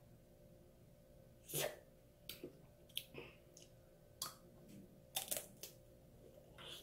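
Hard sugar shell of a tanghulu candied strawberry cracking and crunching as it is bitten and chewed. A string of sharp crackles, the loudest about a second and a half in, others scattered after it.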